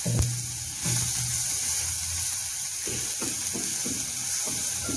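Garlic paste and sesame seeds frying in hot sesame oil, a steady sizzle, with a run of short strokes from a spatula stirring the pan in the second half.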